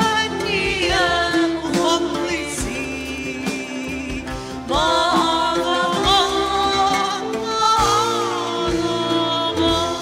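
Two women singing an Arabic worship song together, their melody lines sliding and ornamented, accompanied by a live band with oud and drums. A new sung phrase comes in strongly about halfway through.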